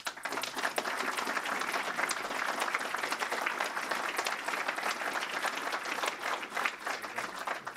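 Audience applauding, with many hands clapping; it starts at once and thins out near the end.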